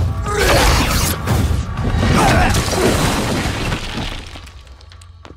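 Stone shattering and debris crashing, a movie sound effect laid over dramatic score, loudest in the first half and fading away after about four seconds.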